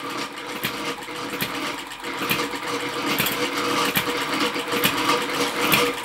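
Miniature ball-top vertical hit-and-miss engine running, belt-driving a gear reduction unit, windmill and pump: a steady mechanical clatter and hum with a regular knock a little more often than once a second. A grinding in the driven train, which the owner puts down to the windmill needing oil.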